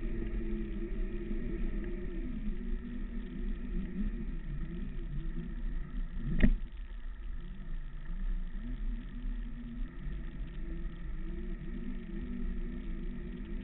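Segway x2's electric drive whining, its pitch wavering up and down with speed, over a steady low rumble of the ride. A single sharp thump about six seconds in.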